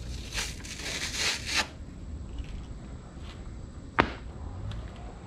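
Buffing pads being changed on a handheld polisher: a rough rasp of a few quick strokes in the first second and a half, typical of a hook-and-loop pad being pulled off, then light handling and one sharp click about four seconds in.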